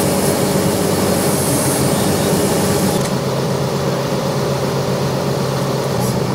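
Tow truck's engine running steadily with a low hum, and a high hiss over the first three seconds.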